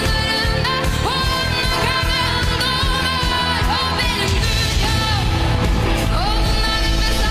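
A pop song with a sung vocal over a steady bass.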